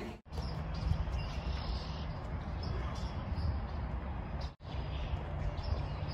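Outdoor marsh ambience: small birds chirping now and then over a steady low rumble, like wind on the microphone. The sound drops out briefly twice, just after the start and about four and a half seconds in.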